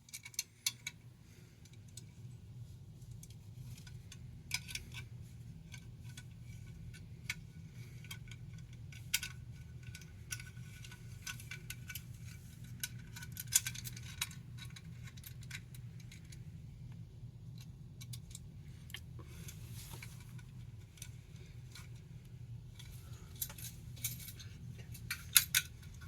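Scattered light metallic clinks and clicks of small hardware and tools being handled, with a cluster of sharper clinks near the end, over a steady low hum.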